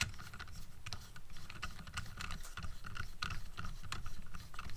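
Plastic cell phone tripod clamp being handled and pulled open to its widest, a run of light, irregular clicks and taps.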